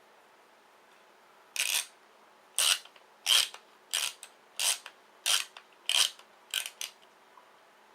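A pipe cutter being worked around an eGo cartomizer's casing, its cutting wheel scraping in a run of about eight short rasps roughly two-thirds of a second apart, starting about a second and a half in.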